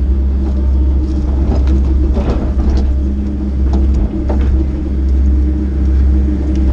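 Excavator's diesel engine running steadily under hydraulic load, with scattered scrapes and clunks as the bucket works crunchy dirt.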